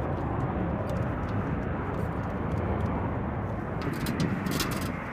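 Steady running noise of jet aircraft on the flight line, with a few light clicks and clinks about four seconds in.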